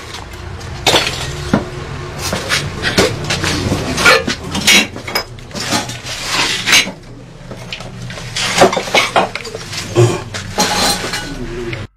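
Shrine objects being smashed and flung about: an irregular run of sharp knocks, clinks and crashes of metal and breakable items hitting each other and the floor.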